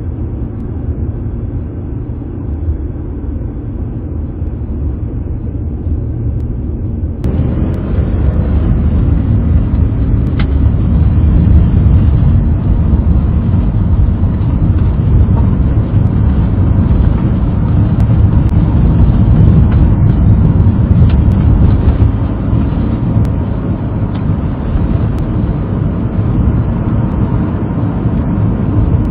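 A car's steady low engine and road rumble, heard from inside the cabin. About seven seconds in it suddenly becomes fuller and louder.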